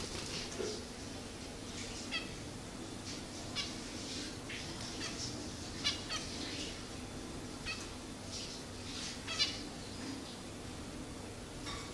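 Pet finches calling: many short chirps scattered irregularly, some in quick pairs, over a faint steady hum.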